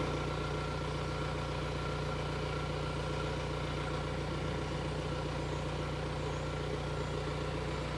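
Kia Sorento's 2.2-litre four-cylinder turbodiesel idling steadily, a low even hum heard from inside the cabin.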